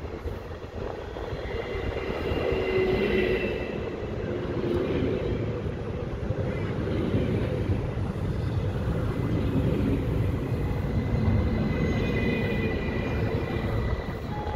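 Sm5 Stadler FLIRT electric multiple unit running in along the platform, its wheels rumbling on the rails and growing louder about 2 s in. High whining tones rise over the rumble briefly about 2 s in and again near the end.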